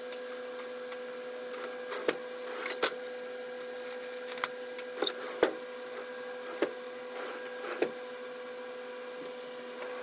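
Vending machine being restocked: a steady hum, with scattered light knocks and clicks as items are handled and loaded.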